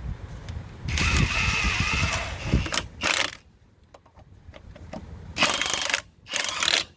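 Power tool, most likely an impact wrench, running the wheel's lug nuts on in bursts: one run of about two seconds with a steady high whine, then three short bursts, snugging the nuts lightly before the car is lowered off the jack.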